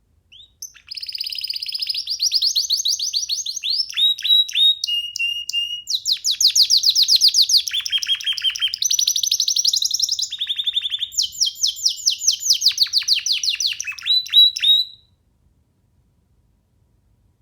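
Young domestic canary singing one long, unbroken song of fast trills and rolling phrases that switch pattern every second or two. The song starts just under a second in and stops about three seconds before the end.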